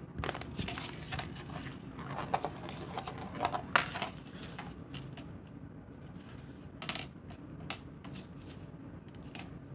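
Gumballs handled on a plate, making scattered light clicks and taps, a few bunched together about four seconds in and again near seven seconds.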